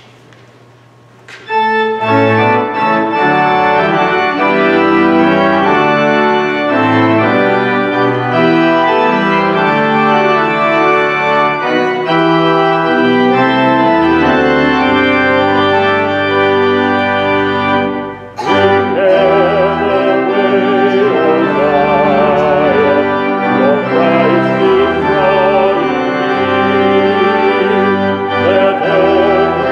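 Church organ playing a hymn in slow, sustained chords, coming in about a second and a half in. It breaks off briefly near the middle, and in the next phrase the upper notes waver with vibrato.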